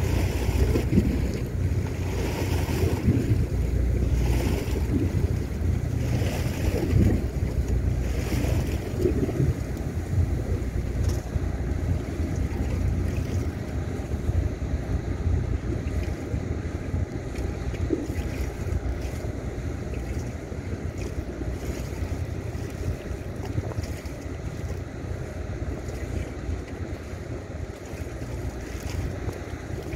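Wind buffeting the microphone in gusts, a heavy rumble that eases a little in the second half, over choppy harbour water slapping against the quay wall.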